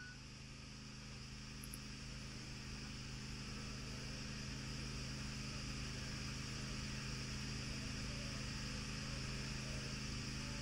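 Faint steady low machine hum with a high hiss over it, slowly growing louder over the first few seconds.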